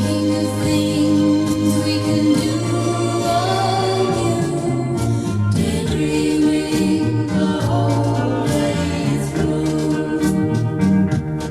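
1960s pop record: a vocal group sings over organ, bass and drums.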